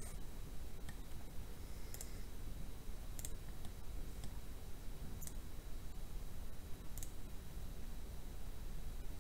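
Computer mouse clicks, about eight of them at irregular spacing, each short and sharp, over a steady low background rumble.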